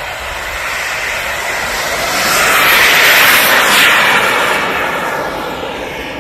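Radio-controlled model airplane flying past: its engine swells to its loudest about three to four seconds in, drops in pitch as it goes by, then fades.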